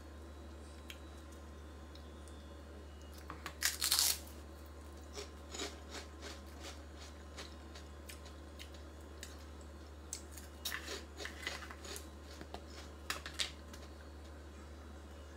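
A crunchy pork rind tortilla chip being bitten, with a loud crunch about four seconds in. Crisp crackling chewing follows, and a second bout of crunching comes about ten to thirteen seconds in.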